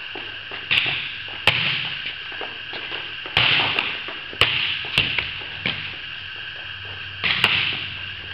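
Volleyballs being struck over and over: sharp smacks as the coach hits balls from a cart and a player passes them off her forearms, some with a short echoing tail.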